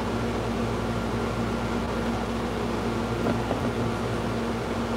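Steady low machine hum with a faint even hiss, like a fan or air-conditioning unit running in a small room.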